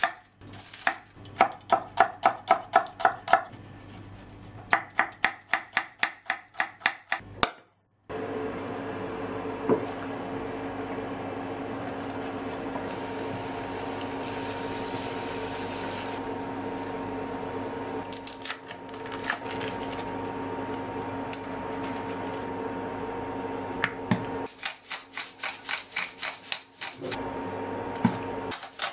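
Two runs of sharp, even knocks, about four a second, then a steady electric hum with a rush of sizzling as a white ingredient is poured onto garlic frying in oil. Near the end comes the rapid clicking of a salt grinder being twisted.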